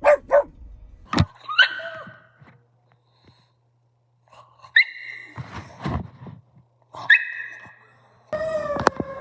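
Pug vocalising: two quick barks at the start, then short high-pitched yips or whines every few seconds with quiet gaps between, and a longer, slightly falling whine near the end.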